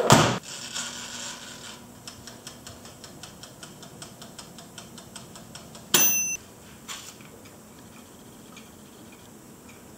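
A Cuisinart toaster oven's door shuts with a clunk and its mechanical timer ticks steadily, about four ticks a second. About six seconds in comes a loud clunk with a brief ringing ding.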